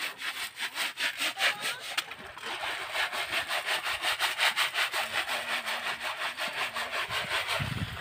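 Fast, even rasping scrapes, like sawing or scrubbing, at about six strokes a second, with a brief pause about two seconds in.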